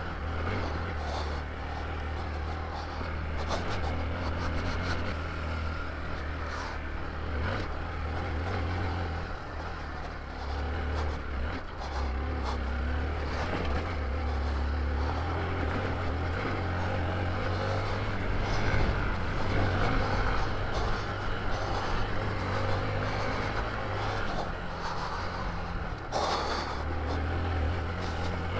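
Hero Xpulse motorcycle's single-cylinder engine running steadily on an off-road ride, over a constant rush of wind and tyre noise, with scattered short clicks and knocks.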